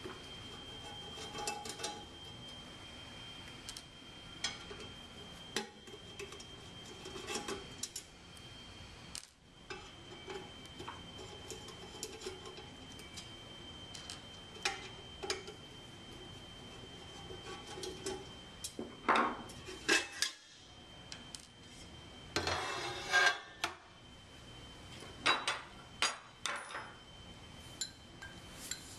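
Small metal clicks and clinks of a screwdriver, screws and stainless-steel cover plates being handled on a tabletop as the plates come off a sampler housing. Brief scraping of sheet metal comes about two-thirds of the way through.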